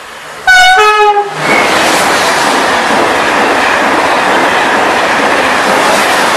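Two coupled TGV high-speed trainsets, one a TGV PSE, sound a short two-note horn, high then low, about half a second in. They then pass through the station at speed with a loud, steady rush of wheel and air noise.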